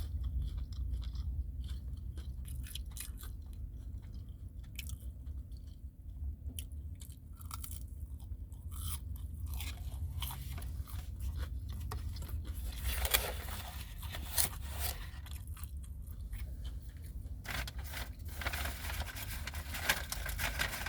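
A person chewing McDonald's chicken nuggets close to the microphone: wet chewing with crunches and small mouth clicks, the crunching heavier about two-thirds of the way in and near the end. A steady low hum sits underneath.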